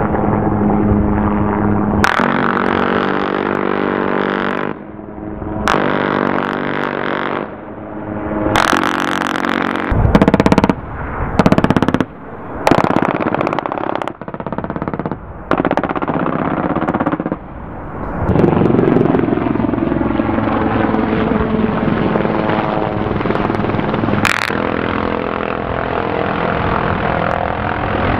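Bell H-1 military helicopter's rotor and turbine engines running, the sound cut abruptly into short pieces, with loud bursts of machine-gun fire about halfway through.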